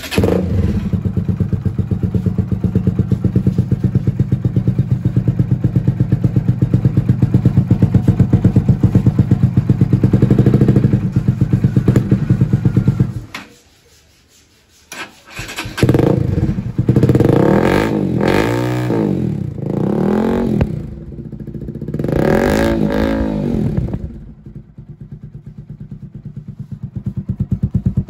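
Bajaj NS160's single-cylinder engine through an aftermarket Akrapovic full-system exhaust with bend pipe, starting up and idling with a steady pulsing beat, then cutting out about 13 seconds in. About two seconds later it starts again, is revved in several quick blips, and settles back to idle near the end.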